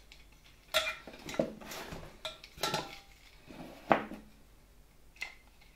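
Metal parts of an old vacuum cleaner clinking and knocking as they are handled during reassembly: about five separate knocks, the first, just under a second in, with a brief ring.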